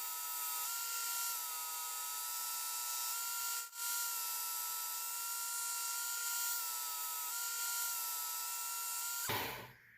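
Work Sharp Ken Onion belt sharpener running with a 120-grit belt, grinding a knife edge during reprofiling passes: a steady motor whine over the hiss of the abrasive belt, its pitch shifting slightly under load. It drops out briefly once near four seconds in and stops about nine seconds in.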